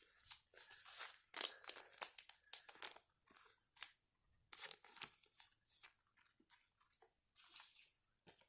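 Faint crinkling and crackling of Pokémon trading card packs and cards being handled, in irregular bursts with a quieter pause in the middle.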